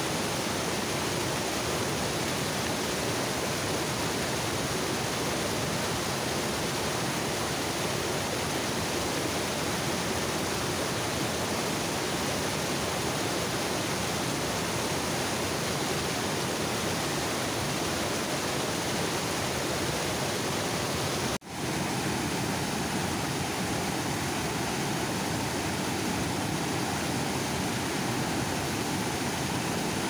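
Water pouring over a dam's overflow, a steady rushing roar. About two-thirds of the way through it cuts out for an instant and resumes with a slightly different tone.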